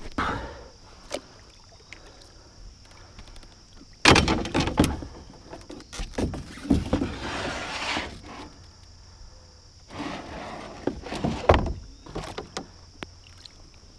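Clunks and scrapes of gear and the landing net against a canoe while a caught musky is handled in the net: a loud cluster of knocks about four seconds in, a few seconds of rustling after it, and more knocks near the end. A steady high insect drone runs behind.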